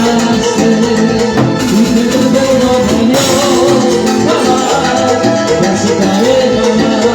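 Latin tropical dance music played by a band, loud and continuous.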